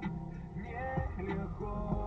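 Russian-language pop song playing, a male voice singing over a bass line.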